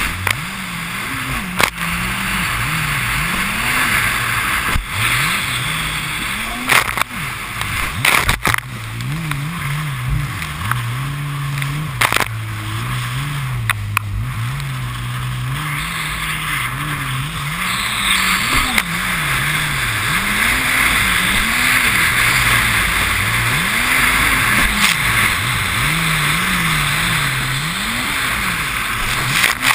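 Jet ski engine revving up and down over and over as the craft rides across choppy waves, under heavy wind and spray rush on the camera microphone, with several sharp knocks of the hull hitting the water.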